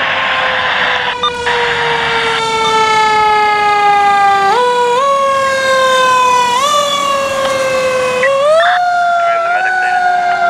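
Siren of a 2016 Spartan Gladiator/Marion heavy rescue fire truck sounding as it passes on an emergency response. Its pitch slides slowly down and jumps back up several times in the second half. A rushing noise covers it for the first two seconds.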